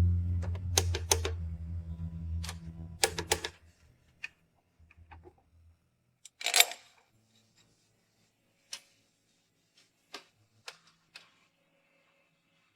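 A low droning hum fades away over the first few seconds, while a series of sharp clicks and taps runs through it. The loudest is a brief clatter about six and a half seconds in, followed by a few faint isolated clicks.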